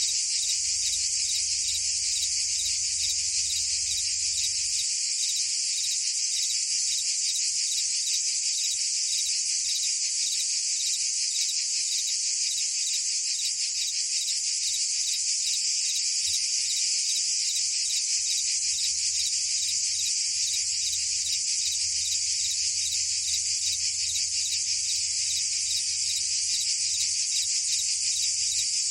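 A dense, steady chorus of cicadas and crickets: a continuous high buzz with a fine, rapid pulsing.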